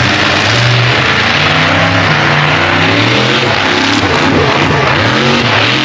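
Vehicle engines running and revving, their pitch stepping up and down, over a loud wash of noise.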